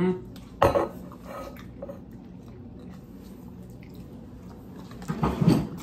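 Quiet chewing of a soft MRE dessert cake, with a sharp tap just under a second in and a short, louder noise near the end.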